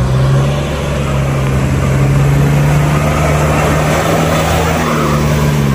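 Mahindra Scorpio SUV's engine pulling steadily under load, its note climbing a little, as it wades through a shallow rocky stream, with water splashing around the tyres.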